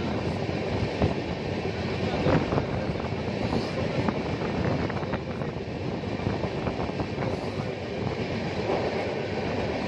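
A train running along the track, heard from aboard: a steady rumble and rattle of the coach, with occasional sharp clicks from the wheels and running gear.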